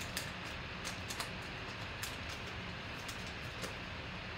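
Foil trading card pack wrapper crinkling in a few short, scattered crackles as the cards are slid out, over a steady low hum.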